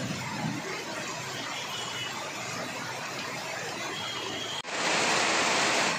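Heavy rain falling on a city road, a steady hiss with passing traffic under it and a faint short high squeal twice. A little over four and a half seconds in it cuts off abruptly and comes back as louder, closer rain.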